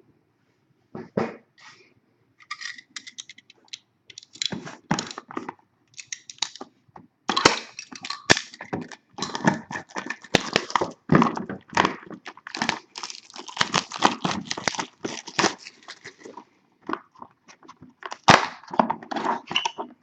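Packaging of a sealed sports card box being crinkled and torn open by hand, in irregular crackles and rips that grow busier about seven seconds in.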